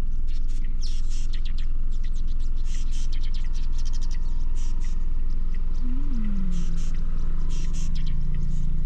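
Birds chirping, many short high calls throughout, over a steady low hum. About six seconds in, a low moaning tone rises, falls and then holds.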